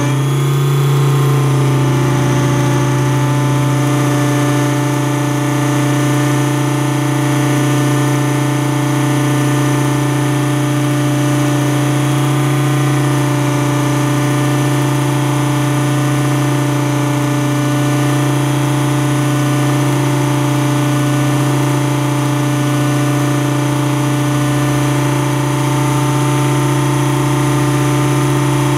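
Thunder Tiger Raptor E550 electric RC helicopter's motor and rotors, heard from a camera on its canopy, running with a loud, steady whine of several constant tones. The pitch settles in the first second or two after the spool-up and then holds steady through the flight.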